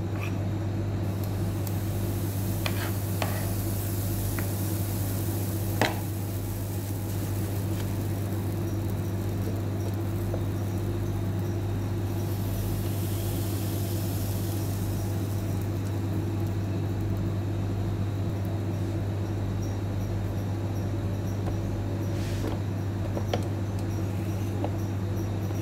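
A Saachi electric roti maker with its lid shut on pancake batter, cooking with a steady low hum and a faint hiss of sizzling. A few light clicks and taps come in the first six seconds, the sharpest about six seconds in.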